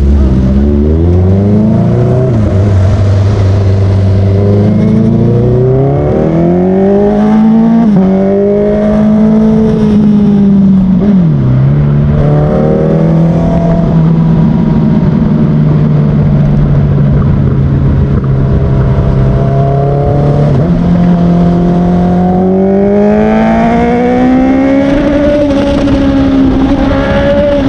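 Honda CBR motorcycle engine under way, its pitch climbing with the revs and dropping sharply at each gear change, with a long stretch of steady cruising in the middle and another climb near the end.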